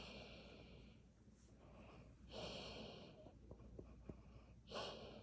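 Treeing Walker Coonhound snoring in its sleep: three faint snoring breaths about two and a half seconds apart.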